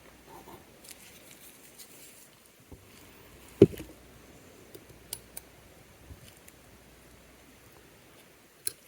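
Faint scattered clicks and taps of small watchmaking tools on an Oris 712 watch movement as it is taken apart. The sharpest click comes about three and a half seconds in, with another just before the end.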